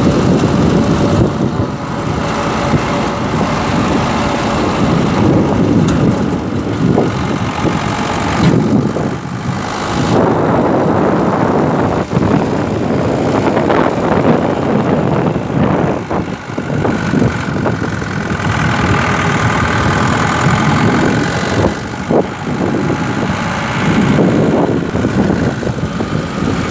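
Engine and road noise of a moving truck, heard from its open cargo bed, running steadily with rising and falling rumble.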